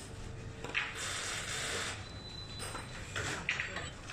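Clicking and scraping of small plastic and metal parts as a PTZ dome camera's lens module is worked on with a small screwdriver, in two short stretches, about a second in and just after three seconds.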